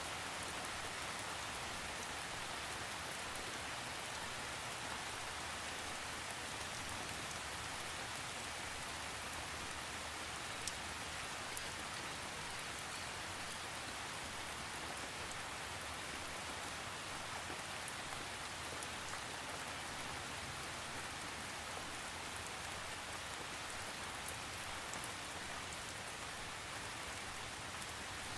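Steady rain falling, with the patter of individual drops on a surface and no thunder.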